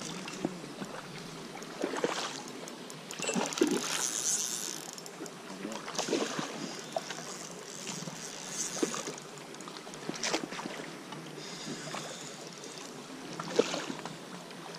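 Hooked trout splashing at the water surface as it is played close in on the line, in several separate splashes a second or two apart.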